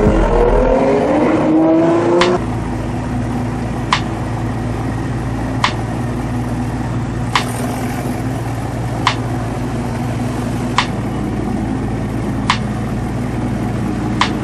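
A car engine revving, its pitch rising for the first two seconds, then running steadily. A sharp click recurs about every second and a half throughout.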